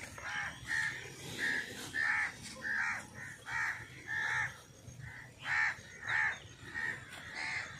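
Crows cawing in a steady run of short, harsh calls, about two a second, some louder and some fainter.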